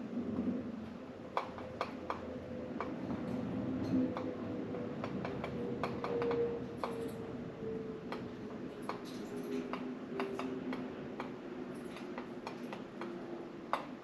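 Irregular light clicks and taps, single and in short clusters, from budgies clambering and pecking on window blinds, over a low steady hum.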